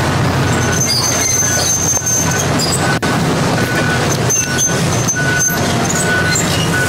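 Hitachi excavator running steadily as it tears into a house's wall, with high squeals and short creaks over the engine.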